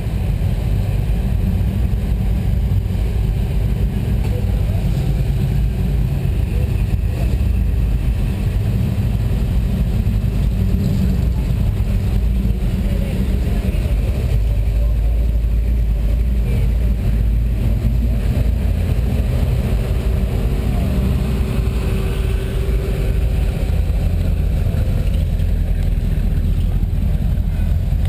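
Engines of classic cars and hot rods idling and pulling slowly forward in a queue: a deep, steady low rumble.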